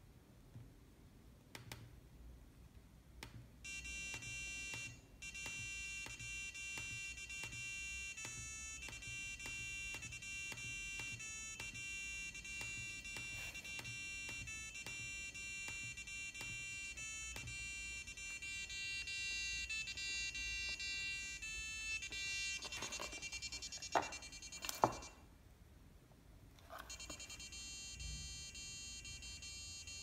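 An electronic alarm tune of beeping notes changing pitch in a short looping melody, played through a laptop speaker and starting a few seconds in. Near the end come two sharp knocks, then the tune stops for about two seconds and starts again.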